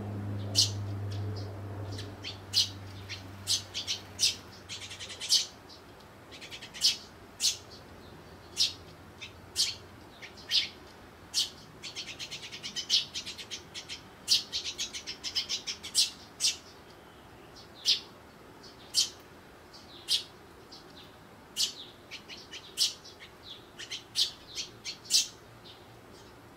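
Eurasian tree sparrows chirping at a seed bowl: many short, sharp chirps, now single, now in quick runs, with a busier stretch of rapid chirping about halfway through. A low hum fades out in the first few seconds.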